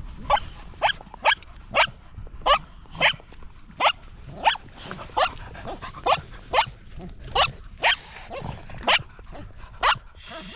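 A dog barking over and over in short, high, evenly spaced yaps, about two a second.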